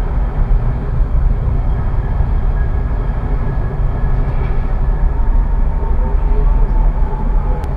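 A city tram running along street track, heard from its driver's cab: a steady rumble of wheels on the rails with a faint whine that slowly drops in pitch near the end. A single sharp tick just before the end.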